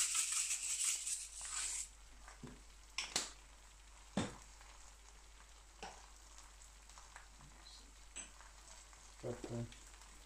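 A salt grinder rattling and crunching as Himalayan salt is ground over the eggs for about the first two seconds. Then eggs fry softly on a carbon steel griddle, a faint sizzle broken by a few sharp clicks and pops.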